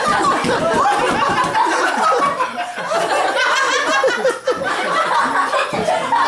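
A group of people laughing and talking over one another, with several voices at once.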